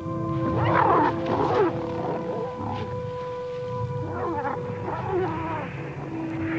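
Wild animals snarling and growling in a dusty scuffle, in two bouts about three seconds apart. Underneath is a soundtrack of long held music notes.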